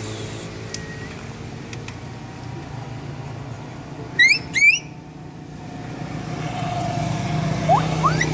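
Steady low rumble of road traffic and a running vehicle engine, broken about four seconds in by two loud, short, high rising chirps, with a couple more rising squeaks near the end.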